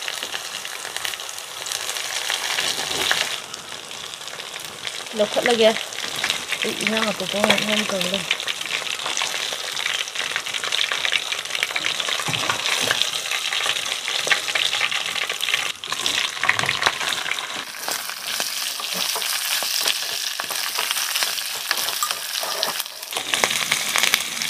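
Hot oil sizzling and crackling in a wok as a whole climbing perch fries, with a metal spatula scraping the pan as the fish is turned.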